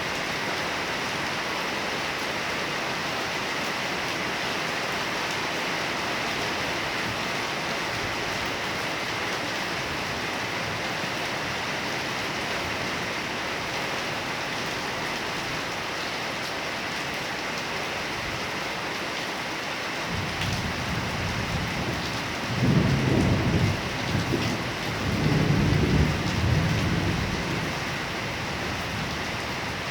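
Heavy rain falling steadily. About two-thirds of the way in, a low thunder rumble rolls in, swells twice, then fades back under the rain.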